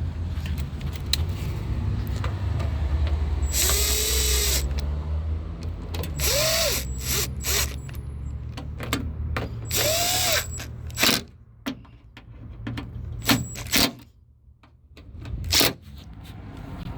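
Cordless power driver run in three short bursts, each spinning up and winding down, tightening the screws of a door latch actuator assembly. Tool clicks and knocks fall between and after the bursts, over a low steady hum.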